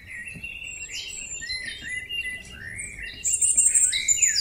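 Several songbirds singing at once: overlapping chirps and short warbled phrases, growing louder about three seconds in with a burst of rapid, high trills.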